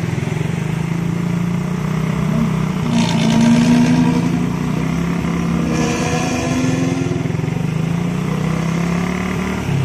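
Intercity bus's diesel engine pulling away with its growling "ngorok" exhaust, a low, steady buzz whose pitch climbs briefly about three seconds in.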